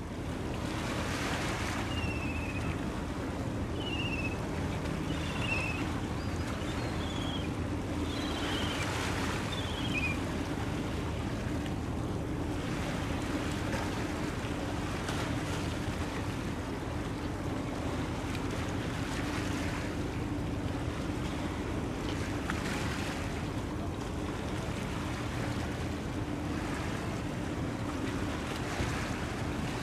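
Steady low drone of a ship's engine under wind and water noise. In the first ten seconds a bird gives a run of about six short, falling chirps.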